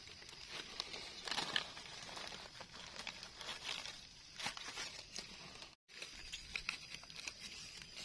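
A knife scraping and cutting into soil and dry leaf litter, with crackling leaves and scattered small clicks as a mushroom is dug out. The sound cuts out briefly about six seconds in.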